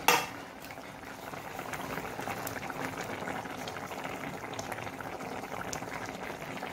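A pot of fish broth with potatoes and tomatoes boiling steadily, with a busy bubbling and small popping ticks. A brief sharp clatter right at the start is the loudest moment.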